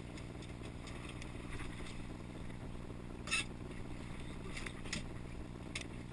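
A boat's engine idling with a steady low hum. A few short, sharp sounds cut in over it, the loudest about three seconds in.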